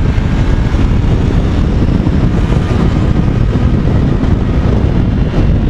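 Motorcycle riding at a steady speed: steady wind rush on the rider's camera microphone over the bike's engine and road noise.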